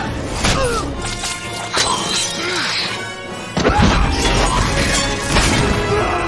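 Orchestral action film score mixed with fight sound effects: a series of crashing impacts, with a heavy low hit about three and a half seconds in.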